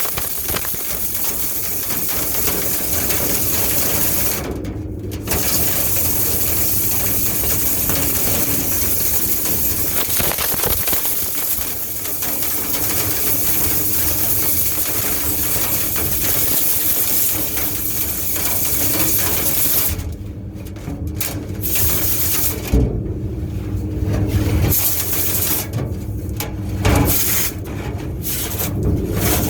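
Dryer vent cleaning equipment working inside a vent duct: a loud, steady rushing, hissing noise that drops out briefly a few times and picks up again.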